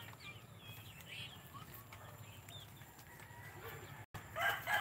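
Native chickens clucking softly with short, high calls scattered through. Just before the end, a rooster starts a loud, long crow.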